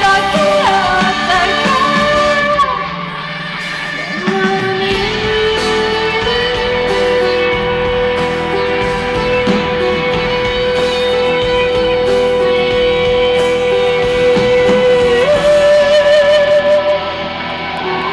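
Live band playing a pop-ballad ending with guitar, while a female singer holds one long note for about ten seconds, then steps up a little higher with vibrato near the end.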